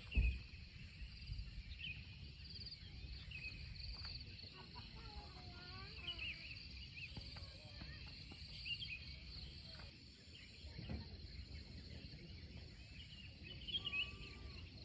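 Birds chirping and calling in short, scattered phrases over a steady high hiss and a low rumble, with a single thump just after the start.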